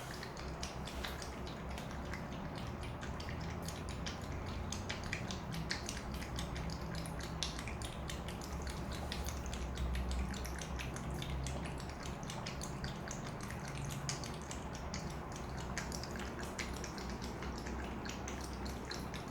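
Domestic cat lapping water, a loud, quick run of wet clicks at about three to four laps a second, with a steady low hum underneath.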